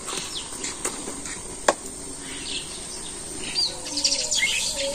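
Birds chirping and calling outdoors, with short chirps gathering in the second half. A couple of sharp clicks sound in the first two seconds.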